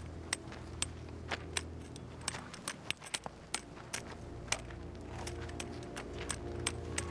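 A bamboo walking cane tapping and poking on stony dirt ground: irregular sharp clicks, about two a second, over a low steady drone.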